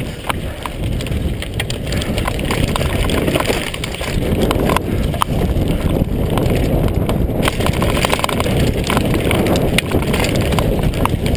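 Mondraker Kaiser downhill mountain bike riding fast down a loose gravel and dirt trail: a steady rumble of tyres over stones, broken by frequent sharp clicks and clatters as the bike rattles over rocks.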